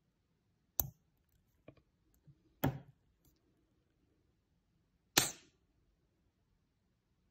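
Miniature pistol firing: three sharp cracks about two seconds apart, the last the loudest with a short ring, with faint mechanical clicks between them.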